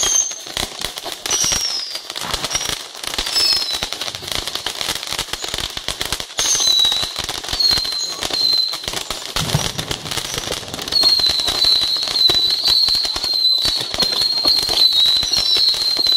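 A mass of baby rockets (tiny firework rockets) firing off in a rapid, unbroken stream: a dense crackle of launches with high whistling. From about two-thirds of the way through the whistling becomes one steady whistle.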